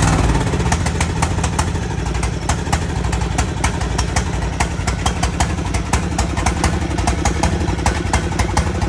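Lawn mower's small petrol engine running steadily and loudly, having just fired up after being worked on.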